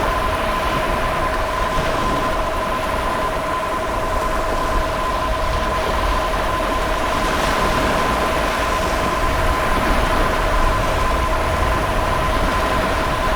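Emergency alert attention signal: two steady tones sounding together without a break, over a loud, continuous rushing roar of waves.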